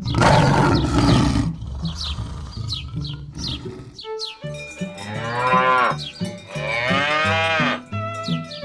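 A cow mooing twice, two long calls that bend in pitch, over light background music. A loud noisy burst at the very start and a few short chirps come before the moos.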